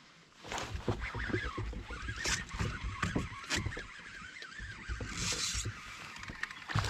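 Uneven low rumbling with several sharp knocks from a Hobie Pro Angler 14 360 pedal kayak as it is turned and maneuvered, with a brief hiss a little after five seconds in.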